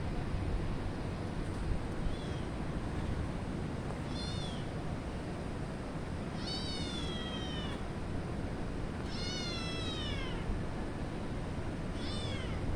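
Stray cat meowing: about five meows, each falling in pitch, the two in the middle long and drawn out, over a steady low background hum.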